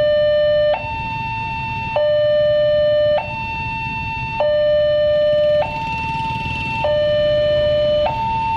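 Railway level crossing's electronic warning alarm sounding from the loudspeaker on its signal mast: two steady tones, one low and one higher, take turns every second and a quarter or so. It is the signal that a train is approaching and the barriers are closed.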